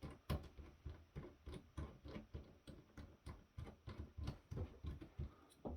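Faint, rapid ticking or clicking, about four ticks a second, uneven in strength.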